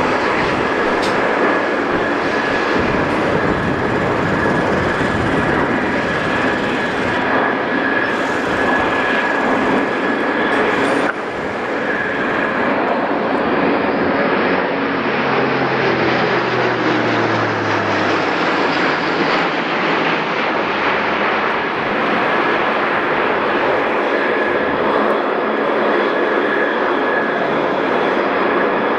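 Airliner or military transport aircraft engines running loudly during an airshow display pass, with a steady high whine over the rush. About halfway through, the engine note falls in pitch as the aircraft goes by. There is a sudden brief dip in the sound about eleven seconds in.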